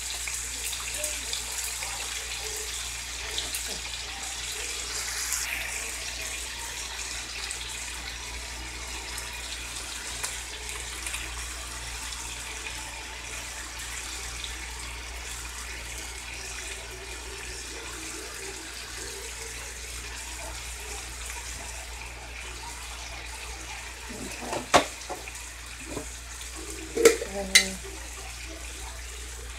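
Chicken and vegetables sizzling in a cast-iron skillet: a steady hiss over a low hum. A few sharp knocks come near the end.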